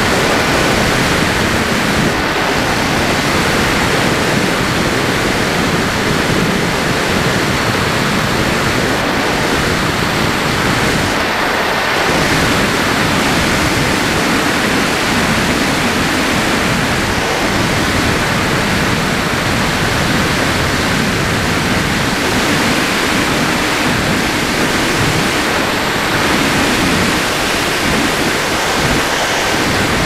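Loud steady rush of airflow over the FPV Raptor plane's onboard camera microphone, with the faint steady whine of the plane's electric motor and propeller running under it.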